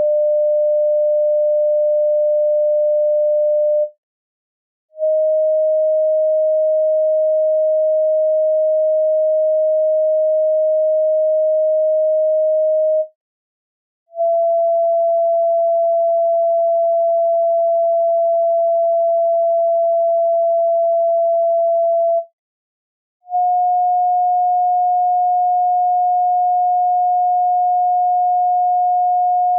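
A series of electronically generated pure sine tones, the chakra frequencies tuned to 432 Hz, played as pitch references to hum along with. Each tone is held steady for several seconds, then breaks off for about a second before the next, slightly higher tone begins: new tones start about 5, 14 and 23 seconds in.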